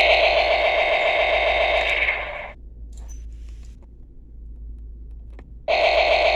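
Electronic shooting sound effect from a toy gun's small speaker, a fast-pulsing buzz. It stops about two and a half seconds in and starts again abruptly near the end.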